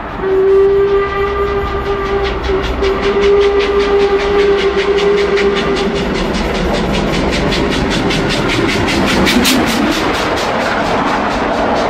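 LMS Princess Royal class four-cylinder steam locomotive 6201 Princess Elizabeth sounding one long steady whistle for about five seconds while passing at speed. Its exhaust beats come quickly and evenly, about five a second, and are loudest near the end as the engine passes close.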